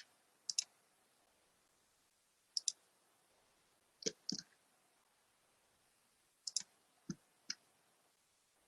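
Computer mouse buttons clicking: scattered single clicks and quick double clicks, a second or two apart.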